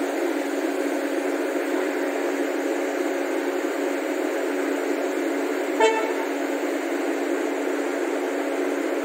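A single short toot from a locomotive's air horn about six seconds in, over a steady rushing noise.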